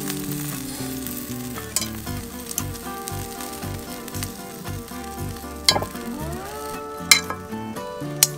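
Chicken sizzling on a wire grill rack over hot charcoal, with a steady hiss. Metal tongs click sharply against the rack and the meat several times; the loudest clicks come near the end.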